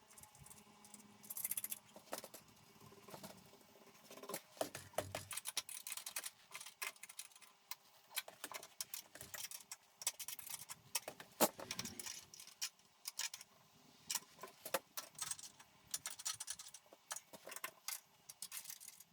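Irregular light metallic clicks, ticks and rattles of small steel hardware being handled and fitted, nuts and brackets for a suspended-ceiling hanger, with a faint steady hum underneath.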